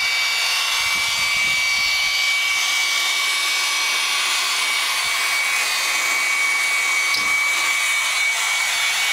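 Small handheld electric blower running steadily, a high motor whine over a rush of air, blowing into a portable charcoal grill to fan the coals.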